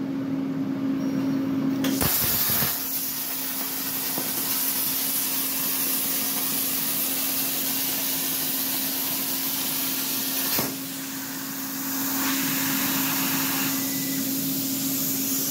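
Everlast Power Plasma 82i plasma cutter on a CNC table cutting quarter-inch steel plate: the arc starts with a sharp pop about two seconds in and hisses loudly and steadily as the torch cuts, over a steady hum. Past the halfway point the hiss stops with a click, then hisses again.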